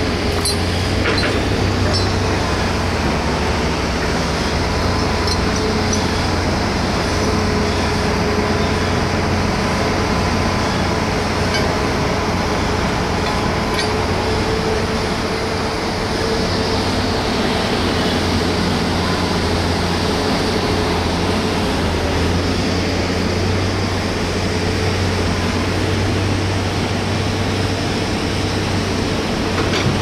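Sawmill machinery running steadily: a continuous mechanical drone with a steady low hum and a faint whine, unchanging throughout.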